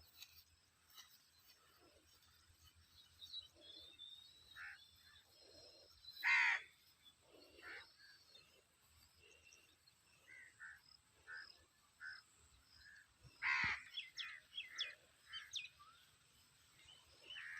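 Birds calling and chirping in a quiet rural setting. Two louder calls stand out, about six and thirteen seconds in, and the second is followed by a quick run of short chirps.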